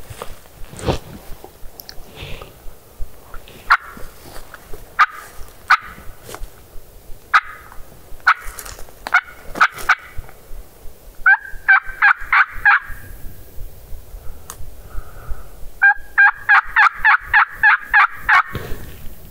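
Hen turkey yelps made on a hunter's mouth call: a few scattered notes, then a run of about six yelps and, about 16 seconds in, a longer run of about ten, each yelp breaking from a low note to a higher one.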